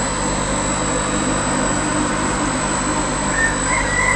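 Steady hum of electric air-pump motors aerating the fish tanks.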